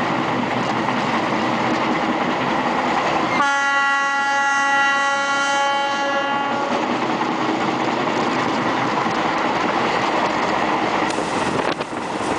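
Diesel locomotive horn sounding one long blast of about three seconds, starting a few seconds in, over the steady running noise of the moving train. Wind buffets the microphone near the end.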